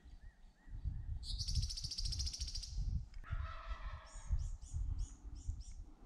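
Wild birds calling: a fast high trill for about a second and a half, then a lower, falling call, then a run of short high notes about four a second. A low rumble runs underneath.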